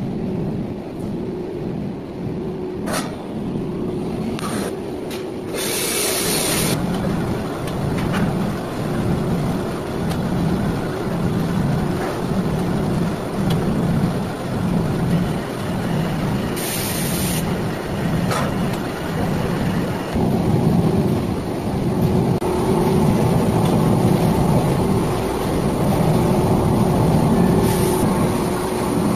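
Stone-slab factory machinery running steadily, with a low rumble that pulses about once a second under a steady hum. Short hissing bursts come twice, near 6 s and 17 s in.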